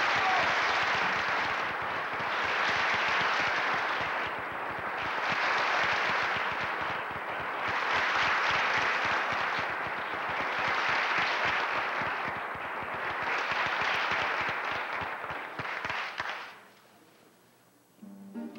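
Audience applauding, the clapping swelling and easing in waves, then dying away about two seconds before the end.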